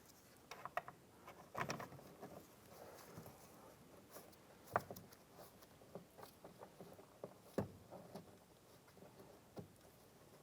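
Faint, scattered clicks and taps of small screws being handled and lined up against a plastic interior door panel, with a few sharper knocks.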